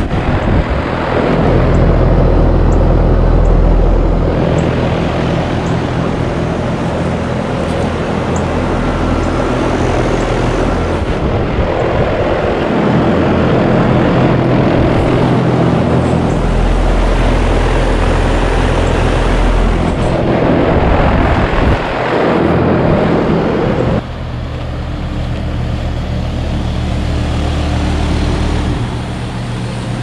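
Two 2010 Trane XB14 heat pump outdoor units running in heat mode: condenser fans and compressors running steadily with a low hum. About 24 seconds in the sound shifts and drops to a quieter pair of 2014 and 2015 Bryant Legacy Line heat pumps, also running in heat mode.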